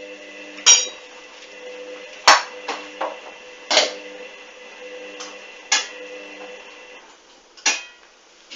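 Hoover washing machine tumbling a duvet: the drum motor hums steadily while sharp clanks with a short ringing tail come every second and a half or so. The motor hum stops about seven seconds in, as the drum pauses.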